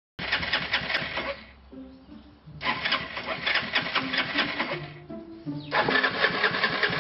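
Honda Helix scooter's 250 cc single-cylinder engine being turned over on the electric starter in three long cranking bursts with pauses between, over background music.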